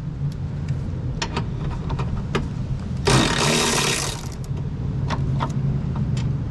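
Scattered light clicks and taps of parts and tools being handled during headlight assembly reinstallation, over a steady low hum, with a short burst of noise about three seconds in.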